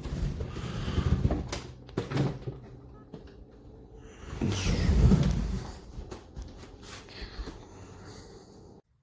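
Knocks, clicks and rubbing from a dual monitor stand's arms being moved and handled, with two heavier clunking spells, one at the start and one about five seconds in; the sound cuts off abruptly near the end.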